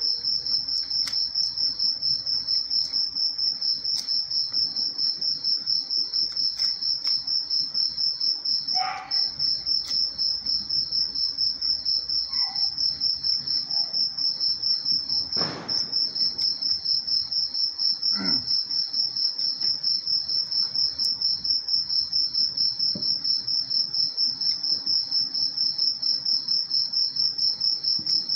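Insects chirping in a continuous high-pitched trill that pulses evenly about four or five times a second. A few faint brief noises come from the table.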